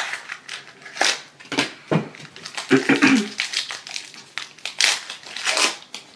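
Foil trading-card booster-pack wrapper crinkling in the hands as the torn pack is worked open and the cards are slid out: a run of short crinkles, roughly one a second.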